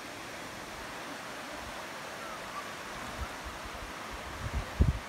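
Steady rush of river water flowing below. From about three seconds in, wind buffets the microphone with irregular low thumps, the strongest near the end.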